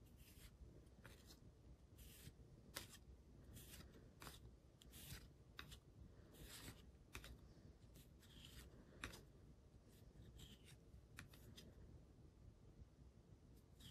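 Faint swishes of hockey trading cards sliding off one another as a stack is flipped through by hand, one card at a time, about once a second.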